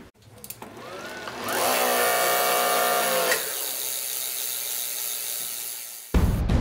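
Velogical Velospeeder rim-drive friction motor spinning a bicycle's rear wheel up to speed, a whine rising in pitch and then holding steady. About three seconds in the whine stops and the wheel whirs on, slowly spinning down. Near the end, loud intro music cuts in.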